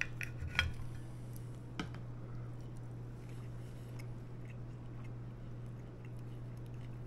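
Steel knife and fork cutting roast pork loin on a ceramic plate: a few sharp clinks and scrapes in the first two seconds, over a steady low hum.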